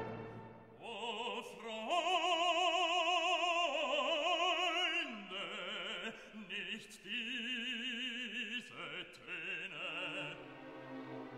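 Background music: an operatic voice singing a string of long held notes with a wide vibrato.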